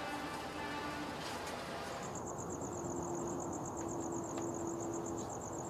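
Night insects trilling: a high, rapid, evenly pulsing trill sets in about two seconds in and carries on steadily over a faint low hum.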